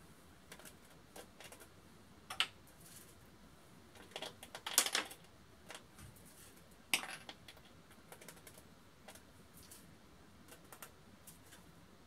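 Small pebbles clicking as they are handled and pressed one at a time onto a canvas: scattered light clicks, with a cluster about four to five seconds in and a sharper click near seven seconds.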